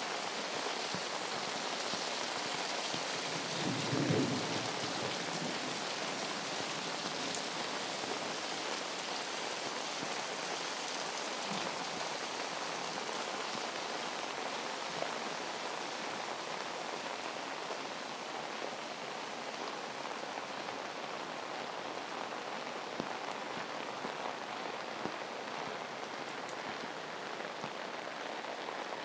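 Heavy rain falling steadily, with water pouring off roofs onto the ground. A short low rumble of thunder swells about four seconds in.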